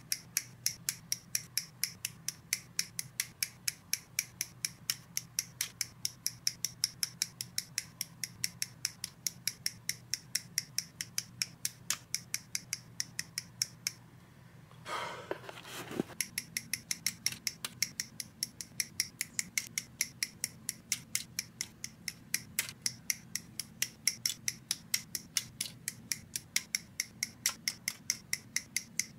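Sprue cutters snipping plastic model parts off their sprues: a fast, even run of sharp clicks, about three a second. The clicks break off for about two seconds midway, with a short rustle in the gap.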